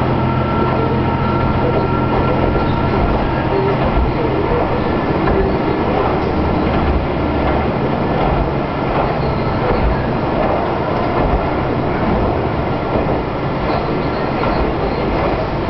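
Diesel railcar running along the line, heard from inside the cabin: a steady engine drone over the rumble of wheels on rail, with occasional rail-joint clicks. The engine note fades back about halfway through.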